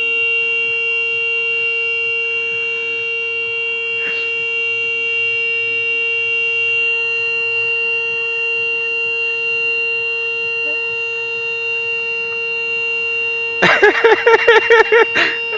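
Car horn held down in one long, unbroken blast, sounded by a dog inside the car. Near the end a loud burst of wavering, pulsing sound joins it.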